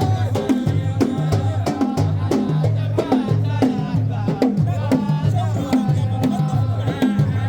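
Music with a steady percussive beat, a repeating bass line and a melody over it.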